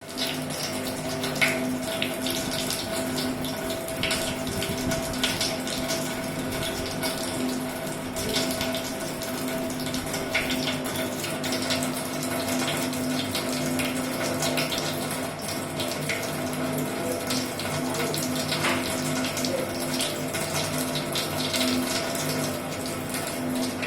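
Water running steadily with splashes now and then, over a steady hum.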